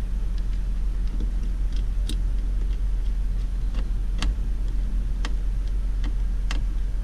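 Scattered light clicks and ticks as a screw is fitted into a plastic car door trim panel, over a steady low hum.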